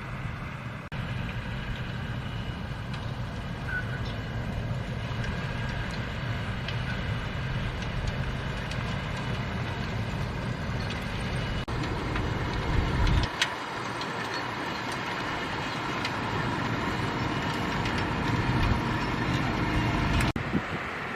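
Fendt 724 tractor and Keiler Ropa II potato harvester running steadily in the field, a continuous engine drone with machinery noise; the sound breaks off and changes abruptly a few times.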